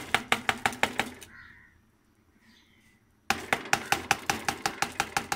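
A metal spoon rapidly knocking and scraping against a bowl as rice is pushed out of it into a pot, about seven quick clicks a second. The clicks come in two runs, stop for about two seconds in the middle, and start again.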